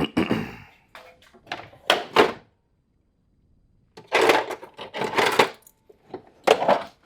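Tools and parts being handled and set down on a workbench: a series of about six short clunks and rattles with brief pauses, and a quiet stretch about three seconds in.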